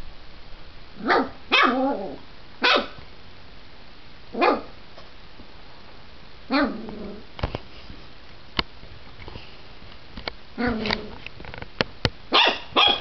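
A Lhasa Apso–Dachshund mix puppy barking in short bouts of one to three sharp barks, about eight in all, with pauses of a few seconds between bouts. A few sharp clicks sound between the barks.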